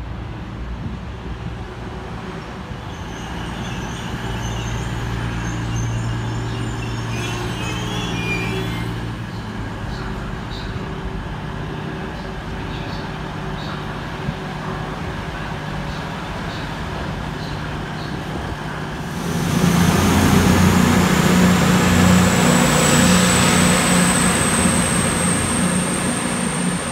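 Passenger train moving through a station: a steady low running hum with faint squeals and light clicks. About two-thirds of the way in it turns into a louder rush with a slowly rising high whine.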